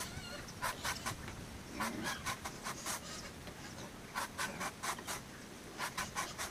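A knife slicing through a soft, fibrous banana trunk, in quick runs of three to six short cutting strokes with brief pauses between the runs.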